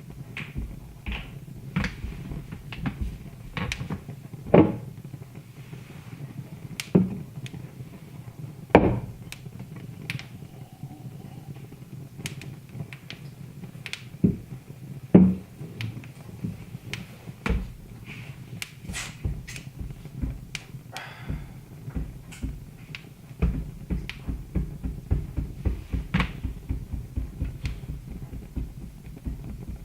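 Wood fire in a fireplace crackling: many small sharp pops over a low steady rumble, with a few much louder snaps spread through, and the crackling thickening toward the end.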